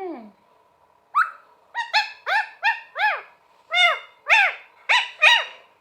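Pet green parrot calling: a quick series of about ten short calls, each rising and then falling in pitch, with a short pause midway.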